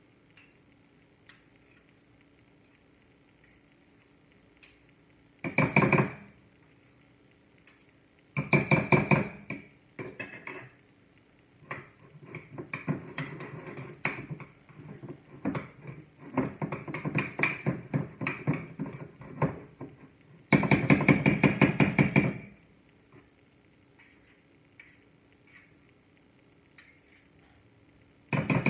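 Metal fork and spoon clinking and scraping against a ceramic bowl while herb butter is stirred and scraped off the utensils. It comes in several bursts of quick tapping with quiet gaps between, the longest and busiest two-thirds of the way in.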